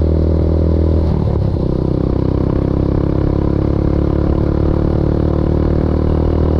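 Motorbike engine running steadily while riding, with a brief change in engine pitch about a second in.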